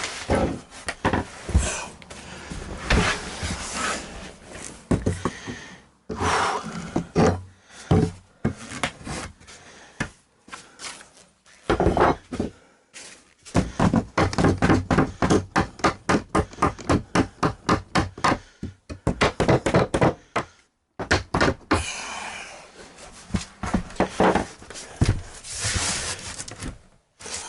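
Knocks and thuds of particle board floor panels being worked into place, with a fast, even run of blows, about four a second, in the middle.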